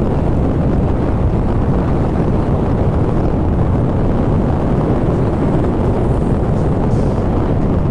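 Wind buffeting the microphone on a moving vehicle: a steady, loud, low rumble with no clear engine note.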